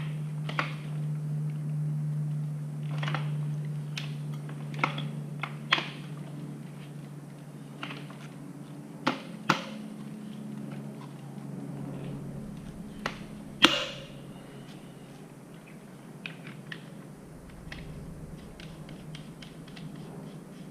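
Scattered metal clicks and knocks of a dirt bike's front wheel and axle being worked into the forks, with the loudest knock about two-thirds of the way through. A steady low hum runs underneath and fades out around that loudest knock.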